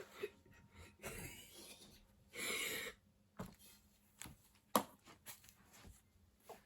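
Scattered light clicks and knocks of tools and metal parts being handled while a mechanical railroad crossing bell is worked on, with a short hiss-like burst of noise about two and a half seconds in.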